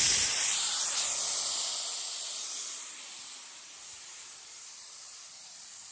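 A steady hissing noise that starts suddenly. It is loud at first, then fades over about three seconds to a quieter steady hiss.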